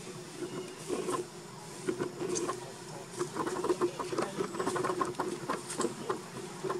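Irregular crackling and rustling, a rapid scatter of small clicks that thickens in the middle, over a faint steady hum.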